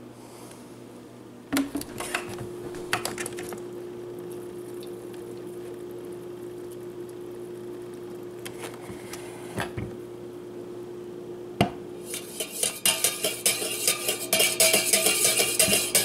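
A metal spoon stirring coffee in a stainless-steel-lined travel mug, clinking rapidly against the metal walls, starting about three-quarters of the way through and growing louder. Before that there are a few scattered knocks and clicks over a steady hum.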